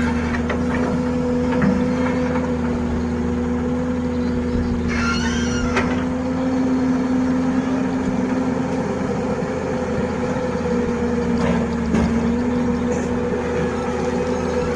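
Heavy diesel engine of earthmoving machinery running steadily, with a brief high squeal about five seconds in and a couple of knocks near the end.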